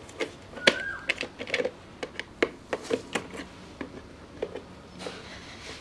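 Irregular clicks and knocks of a screwdriver working on the plastic base of a mixer grinder, loosening screws that are stiff from long use, with one brief high squeak about a second in.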